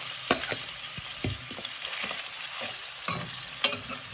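Raw mutton pieces sizzling in hot oil in an aluminium kadhai, with a few sharp knocks of a steel ladle against the pan, the loudest near the end.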